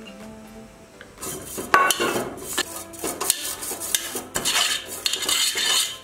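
A brush scrubbing across the perforated aluminium tray of a momo steamer. It makes a busy run of scraping with light metallic clatter, starting about a second in.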